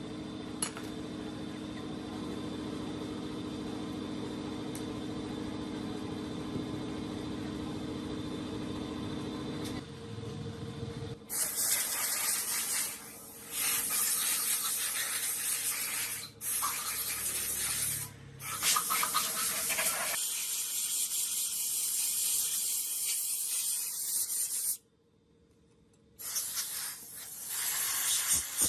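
A steady machine hum, then loud compressed-air hissing from an air or spray gun in repeated bursts, cut off and restarted several times.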